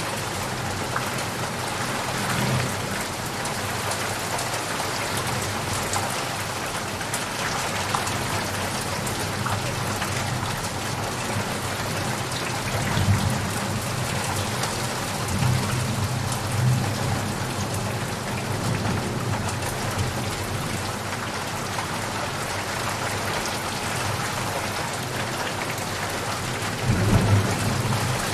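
Steady rain falling, with thunder rumbling low in the background, swelling a few times around the middle and loudest near the end.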